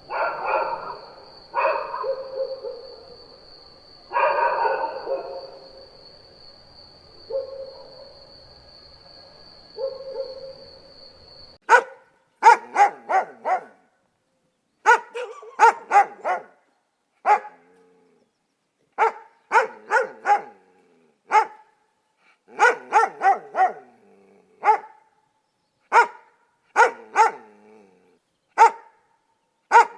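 Dog barking, in two recordings. First come a few longer, drawn-out barks over a steady high-pitched background tone. Then, partway through, a dog barks in quick bursts of two to four sharp barks with short pauses between them.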